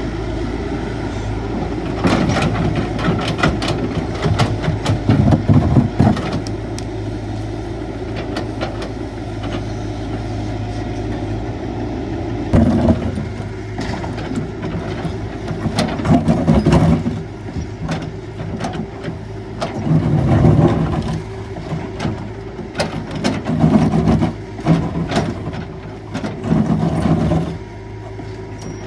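Caterpillar 312 hydraulic excavator's diesel engine running steadily, rising in repeated surges every few seconds as the digging takes load. Clicks and knocks come through during each surge.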